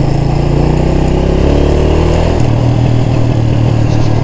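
Single-cylinder four-stroke 125 cc Yamaha motorcycle engine running steadily under way at low speed on a rough dirt track, heard from the rider's own bike; its note changes about two and a half seconds in.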